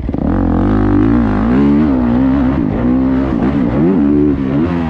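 Pit bike engine revving hard and continuously, its pitch rising and falling quickly with the throttle as it is ridden.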